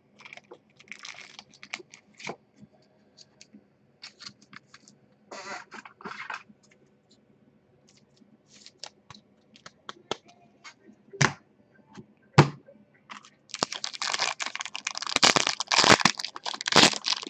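Trading cards being handled, with scattered soft rustles and taps and two sharp knocks a little past the middle. Then a foil-wrapped 2016 Panini Prime Signatures card pack is torn open, crinkling loudly over the last few seconds.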